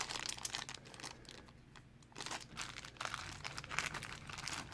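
Crinkly packaging being handled by hand: irregular bursts of crinkling and rustling, with a short lull between about one and two seconds in.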